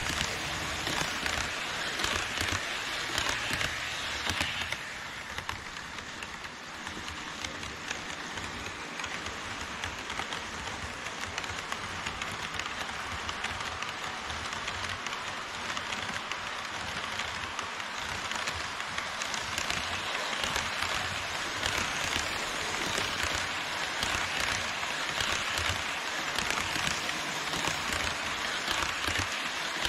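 HO scale model trains, an E5 Shinkansen set and a freight train of tank cars, running on KATO Unitrack on an elevated viaduct: a steady clattering rattle of the wheels rolling over the track.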